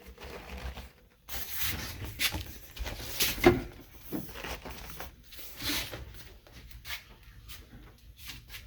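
Rustling and rubbing of a sewn upholstery engine cover being handled and pulled over a boat's engine box, with a few light knocks.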